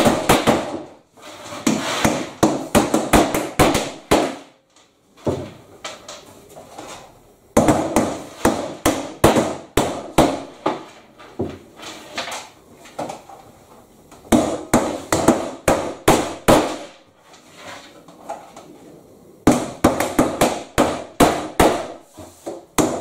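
Hammers driving clout nails through GRP roof trim into a timber deck, in quick runs of several sharp blows a second with short pauses between runs.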